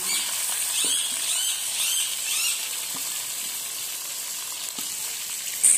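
Chicken pieces sizzling steadily as they fry in hot oil in a kadhai. A metal spatula stirs and scrapes against the pan in the first couple of seconds, with a few light knocks.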